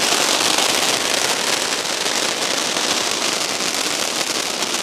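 A lit Diwali fancy firecracker giving off a steady, dense crackling hiss of sparks that eases slightly near the end.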